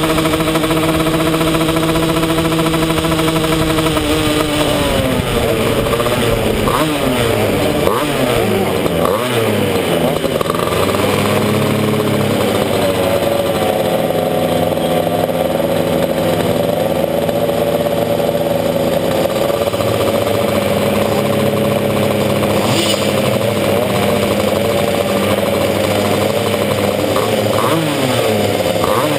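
125cc two-stroke shifter kart engines running on the starting grid: steady at first, then the revs rise and fall for several seconds, then several engines idle steadily, with a few more blips of the throttle near the end.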